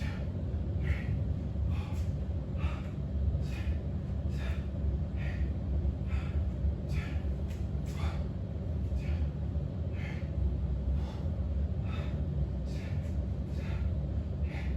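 A person breathing hard and audibly, short breaths about once or twice a second, out of breath from a workout, over a steady low hum.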